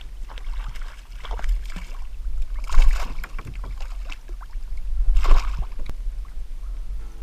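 Water sloshing and splashing around a fishing kayak at sea, with two louder splashes about three and five seconds in, over a low rumble of wind on the microphone.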